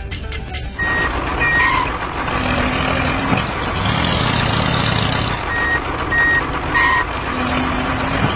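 A vehicle's reversing alarm beeping over a steadily running engine, the beeps coming in two short runs, once about a second in and again after the middle.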